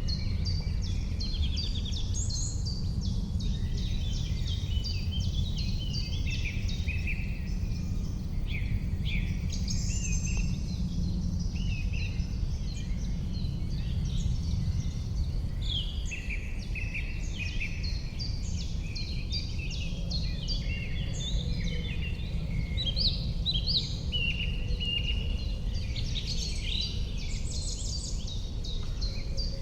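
Several songbirds singing and calling at once, a dense run of quick chirps and phrases, over a steady low rumble of riverside background noise.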